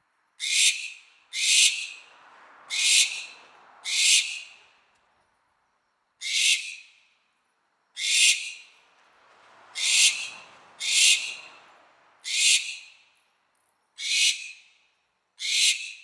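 Barn owl giving a series of eleven short, harsh screeches, each about half a second long and trailing off, spaced one to two seconds apart. The uploader presents these as the barn owl's mating call.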